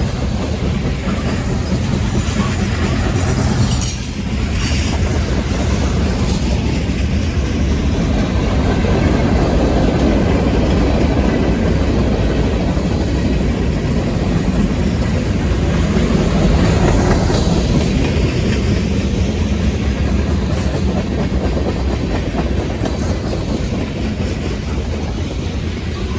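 A long freight train's cars rolling past at about 30 mph, their steel wheels running on the rails in a continuous loud rumble.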